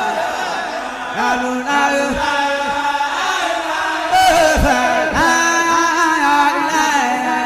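Background vocal chanting: sung lines with long held notes and gliding pitch changes.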